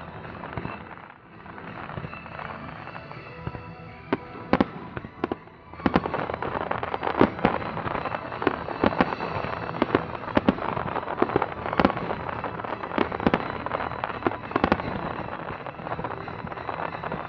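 Fireworks bursting: a few scattered sharp bangs about four seconds in, then a dense barrage of bangs and crackling from about six seconds on.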